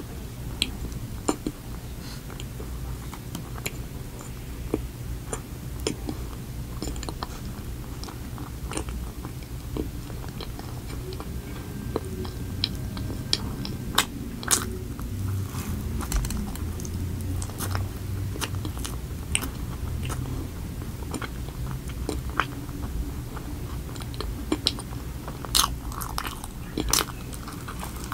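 Biting and chewing an Oreo cookie sandwich with cream filling: irregular crisp crunches and clicks, louder clusters around the middle and near the end, over a low steady hum.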